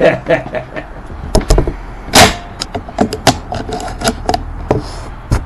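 A string of sharp clacks and knocks from a shotgun being handled and worked, about half a dozen in all, the loudest about two seconds in.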